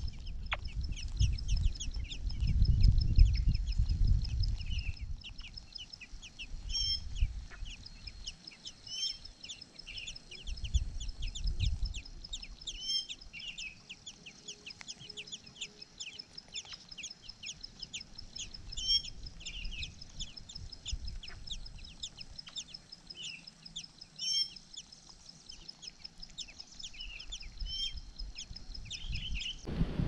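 Chinese blackbird nestlings begging: a dense, continuous stream of rapid high-pitched cheeping, with louder calls every few seconds. Low wind rumble on the microphone in the first few seconds.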